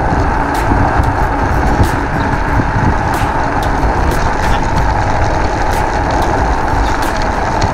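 Wind rushing over the microphone and road noise from a Raze Taurus XT electric scooter riding steadily along a road, a loud, even rush with a steady hum under it.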